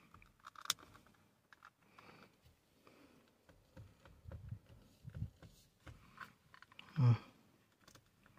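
Scattered small clicks and soft knocks of hands working a clip-on paddle shifter extension on an SRT steering wheel. A louder low thump comes about seven seconds in.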